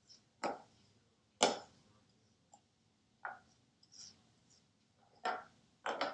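Six short scraping taps, unevenly spaced, the loudest about a second and a half in.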